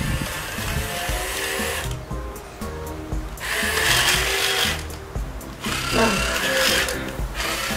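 JJRC R1 toy robot's small electric gear motors whirring in three spurts, each a second or two long with short pauses between, as the robot moves with its sound effects switched off.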